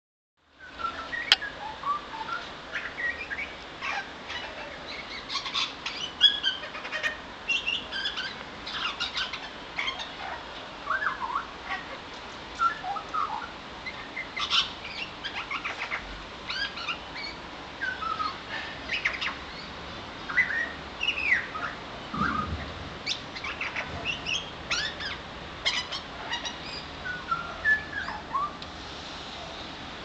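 Australian butcherbird singing a long, varied run of short whistled notes and rising and falling glides.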